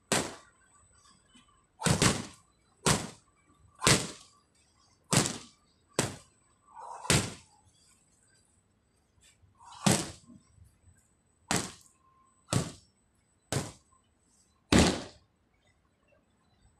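Punches and strikes landing on handheld Muay Thai pads: about a dozen sharp smacks at uneven intervals, including a quick double about two seconds in.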